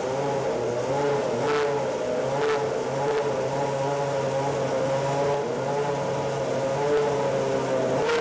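A 1990s Ferrari Formula One car's V10 engine running at idle, its pitch wavering slightly, with two short hisses about one and a half and two and a half seconds in.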